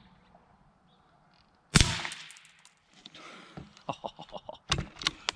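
Single suppressed shot from a Tikka T1x MTR bolt-action rifle in .17 HMR: one sharp, loud crack about two seconds in with a short ringing tail. Lighter clicks and knocks follow over the last couple of seconds.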